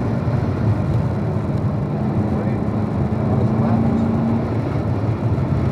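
Chevrolet C7 Corvette Stingray's 6.2-litre LT1 V8, heard from inside the car, holding a steady drone at part throttle around 3,500 rpm through a corner, with tyre and road noise underneath.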